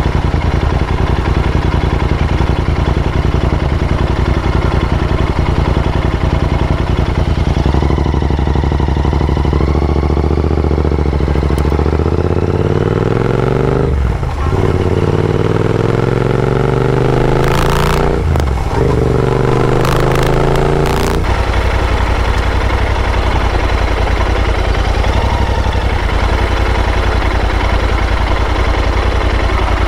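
Royal Enfield Interceptor 650's parallel-twin engine through AEW TE101 exhausts, running steadily, then revving up and down for several seconds with two brief dips in the middle, before settling back to a steady run in the last third.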